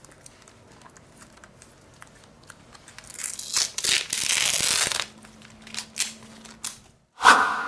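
Small clicks and handling noises of phone repair work, with a stretch of crinkling, tearing noise about three to five seconds in. Near the end the sound cuts out briefly and a ringing chime sound effect starts.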